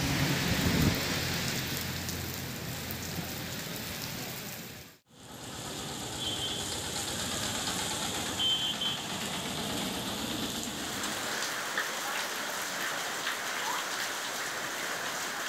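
Steady rain falling on a wet street and rooftops, an even hiss of drops on pavement and puddles. It drops out for a moment about five seconds in.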